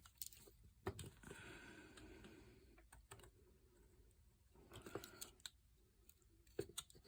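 Swiss Army knife blade cutting and shaving basswood: faint sharp clicks as the blade bites, with a scraping shave about a second in that lasts a couple of seconds and another short one near five seconds.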